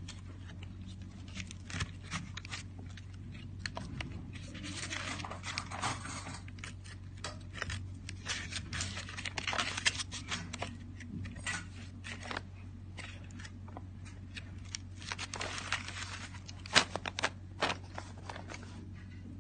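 Thick, stiff pages of an old embossed book crackling and rustling as hands handle and turn them: many small clicks and scrapes, with a few louder clicks near the end, over a faint steady hum.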